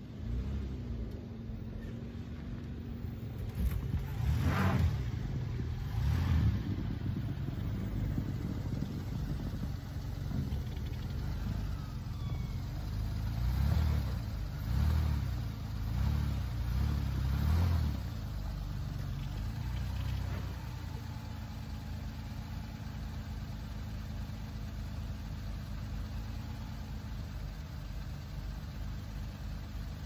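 A minivan's engine rising and falling in repeated revs as it is driven and worked into place on snowy ground, then settling to a steady idle about two-thirds of the way through.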